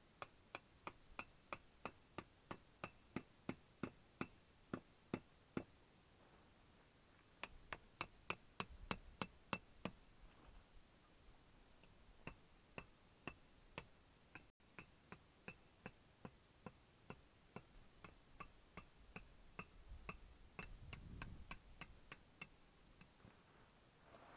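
Hand-twisted spice grinder clicking as it grinds pepper over a steak: a steady run of sharp ticks about three a second, a quicker run around eight seconds in, then sparser clicks. A soft low rustle of handling near the end.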